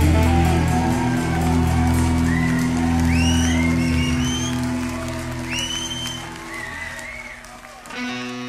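A live rock band lets its closing chord on electric guitars and bass ring out and fade. High rising calls, whistles or whoops from the audience, sound over it along with cheering. A new held chord comes in near the end.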